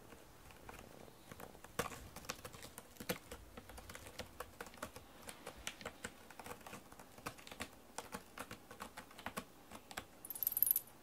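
A cat scratching a corrugated cardboard scratcher with its claws, making a run of quick irregular rasping clicks. Near the end there is a brief, louder high-pitched hiss.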